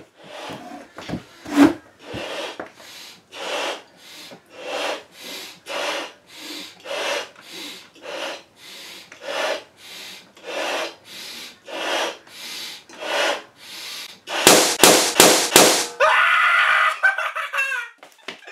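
Large latex balloon being blown up by mouth: a steady rhythm of breaths, about two a second, alternating inhale and blow into the balloon. About fourteen seconds in the balloon bursts in a cluster of loud sharp bangs, followed by a person's laughter and yelling.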